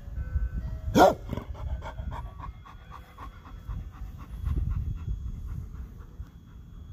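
Chocolate Labrador gives one short, loud bark about a second in, then pants quickly and steadily.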